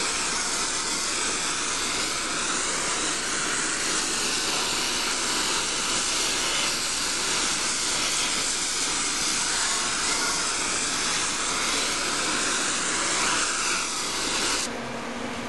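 Oxyacetylene torch flame hissing steadily as it preheats an aluminum cylinder head for welding. The hiss cuts off abruptly near the end.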